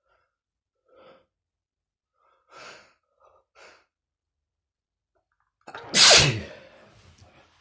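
A man sneezing: three short, faint catching breaths build up, then one loud sneeze about six seconds in whose pitch falls away, followed by breathy after-sounds and a short second burst at the very end.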